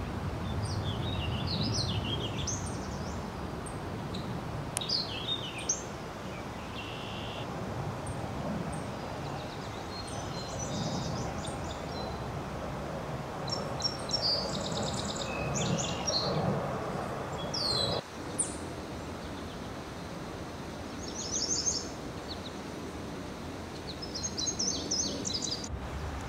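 Small birds calling in short chirps and quick trills, scattered phrases every few seconds, over steady background noise.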